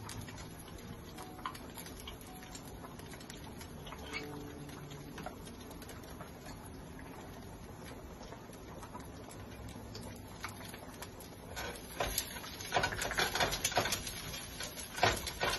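Minced garlic frying in oil in a pan, a faint sizzle with scattered pops. From about twelve seconds in it gets much louder: dense crackling and spattering as a spatula stirs it through the hot oil.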